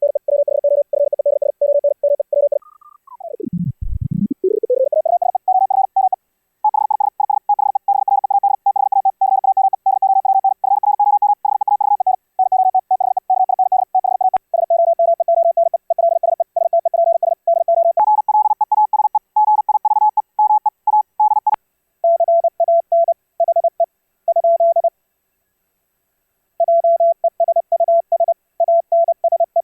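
Morse code (CW) tones demodulated to audio by the LYSDR software-defined receiver, keyed on and off at a steady sending speed. About three seconds in, a steady tone glides from high down to a very low rumble and back up, as when the receiver is tuned through zero beat. After that the keyed tones carry on at several slightly different pitches, with a brief pause near the end.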